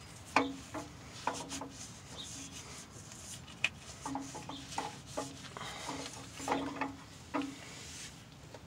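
A gloved hand wiping the inside of a truck's rear differential, ring gear and carrier, with a microfiber rag: a string of short, separate rubs of cloth on oily metal, several with a brief squeak.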